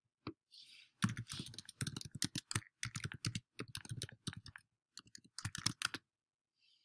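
Typing on a computer keyboard: a fast run of short key clicks, a username and then a password being entered, thinning briefly near the end before a last flurry of keystrokes.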